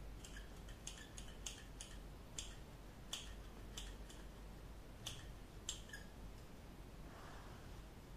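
Scissors snipping close to the microphone for a mock haircut: about nine crisp snips at uneven intervals that stop about two seconds before the end.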